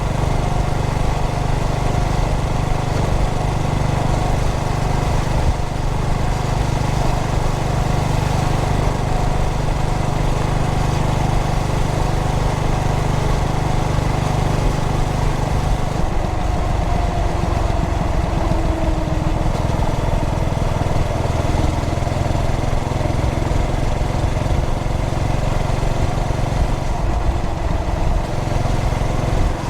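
Yamaha SR400's air-cooled single-cylinder engine running under way, heard while riding along with road and wind noise. The engine note changes about halfway through, as the throttle or gear changes.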